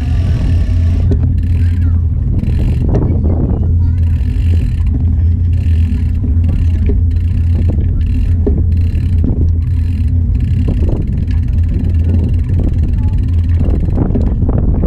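Steady low rumble of wind and road vibration on a bicycle-mounted action camera while riding on pavement, with scattered small knocks and rattles.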